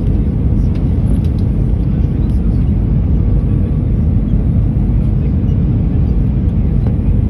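Steady low rush of jet engine and airflow noise inside an airliner's cabin on final approach, just before touchdown.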